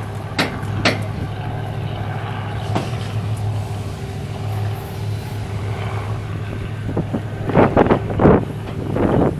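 A steady engine hum runs throughout, with scattered short clicks and knocks. A cluster of louder knocks and rustling comes near the end.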